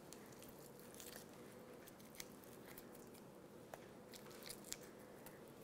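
Near silence, with a few faint soft clicks from fingers peeling the skin off roasted red bell peppers over a foil-lined tray.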